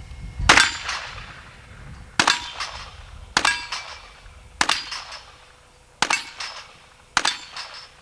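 Six shots from a .38 revolver, fired one at a time at about one to one and a half seconds apart, each followed by a short echo. Six shots is a full cylinder.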